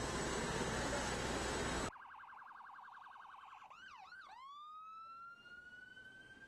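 Loud steady noise, with a faint falling siren tone under it, cuts off about two seconds in. Then an emergency vehicle's electronic siren sounds a fast pulsing warble, two quick down-and-up sweeps, and a slow rising wail.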